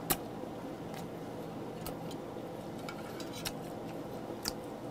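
A few light clicks of metal tongs against the grill rack and dishes, the sharpest right at the start, over a faint steady sizzle of meat cooking on a tabletop gas grill.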